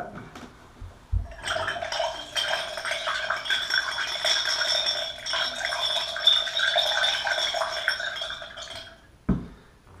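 Metal faucet aerator parts swirled in a drinking glass of vinegar, rattling and clinking against the ringing glass. It starts about a second in with a knock and stops near the end, followed by another knock.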